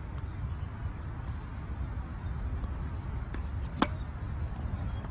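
Tennis racket striking the ball on a serve: one sharp crack near the end, the loudest sound, over a steady low rumble.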